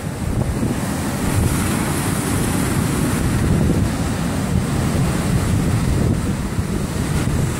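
Heavy Atlantic surf breaking on the beach, with strong wind buffeting the microphone in a constant low rumble.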